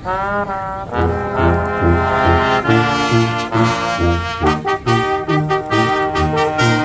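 Brass-heavy music, with trombones and trumpets, that opens with a rising brass glide and goes on over a bass line of short repeated notes in a steady beat.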